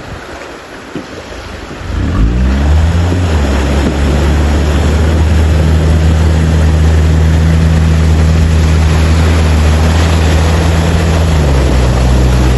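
All-terrain vehicle's Toyota 1NZ-FE four-cylinder petrol engine revving up about two seconds in, then running at steady high revs under a loud rushing noise, its pitch dropping near the end.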